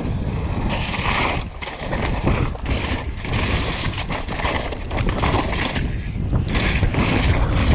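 Mountain bike descending a rough, wet trail at speed: wind rushing over the helmet-mounted camera's microphone, tyre roar on the ground, and frequent rattles and knocks from the bike over bumps and rocks.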